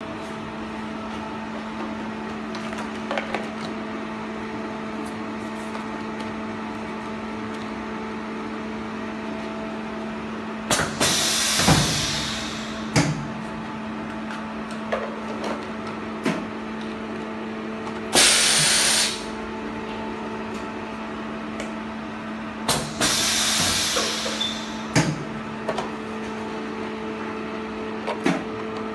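High-frequency blister sealing machine at work: a steady hum throughout, with three loud bursts of compressed-air hiss, each about a second long, as its pneumatic press cycles. Sharp knocks of the press and trays are scattered in between.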